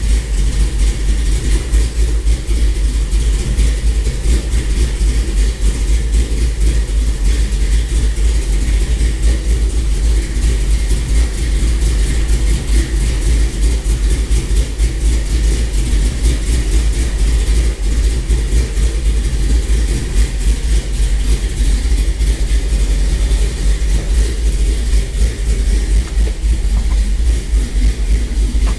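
Cammed 5.7 Hemi V8 in a 1997 Dodge Ram 1500 pickup, running at idle with a choppy, uneven rumble from its aggressive camshaft.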